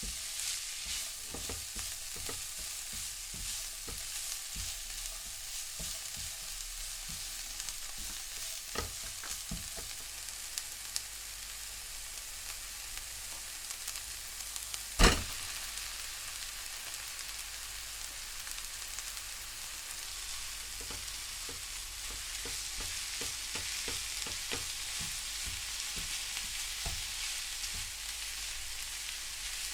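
Food frying in a pan, a steady sizzle with scattered clicks and scrapes as it is stirred. One sharp knock about halfway through.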